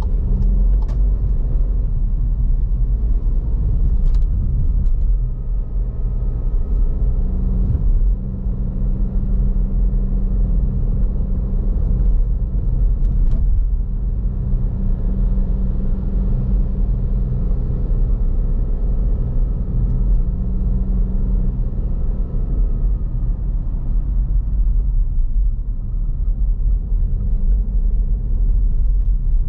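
Car driving with a steady low rumble of engine and road noise, the engine hum rising and falling slightly. A few light clicks come through over it.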